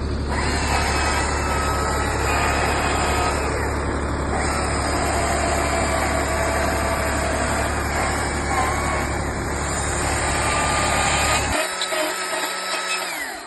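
Stihl chainsaw running hard while carving wood, a loud, steady engine note with a whining chain. Near the end the low engine sound drops away, and everything cuts off suddenly.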